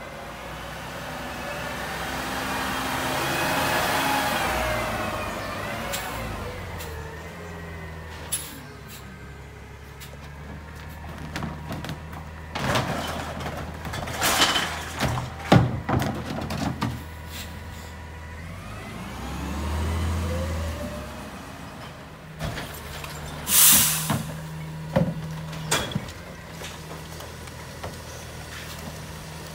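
Rear-loader garbage truck engine pulling up, its pitch rising then falling, then clanks and thuds as a plastic recycling bin is emptied into the rear hopper. The engine rises and falls again as the truck moves to the next stop, an air brake hisses, and more knocks follow as bags are thrown in.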